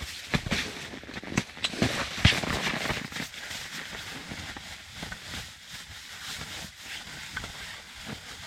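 Scattered knocks, clicks and rustling of a freshly landed burbot being handled, busiest in the first three seconds and then settling to a quieter rustle.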